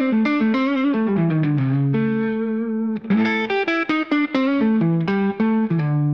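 Intro music: a fast, picked guitar riff with an effects-processed tone, its notes stepping down in pitch, then a few held notes near the end.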